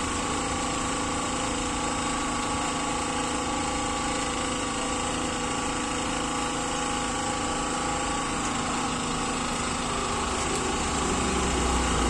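A machine running steadily, a constant hum with several steady whining tones.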